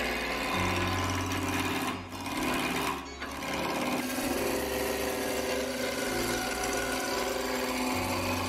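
Wood lathe running while a turning gouge cuts a spinning poplar blank: a steady motor hum under the rough scraping hiss of wood being cut, with abrupt jumps in the sound several times as shots change.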